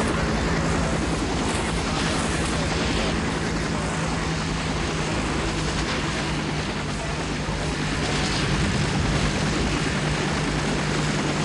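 Bell UH-1 Huey helicopter running on the ground, its rotor chopping rapidly and steadily over a constant low engine drone.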